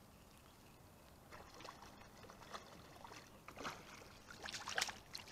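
Water splashing and sloshing right beside a fishing kayak while a hooked fish is reeled in. It starts about a second in as irregular sharp splashes that grow louder toward the end.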